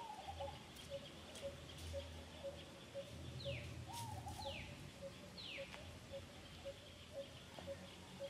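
Wild birds calling: one repeats a short low note about twice a second, and three quick whistles slide downward in pitch near the middle, with a couple of short chirps besides.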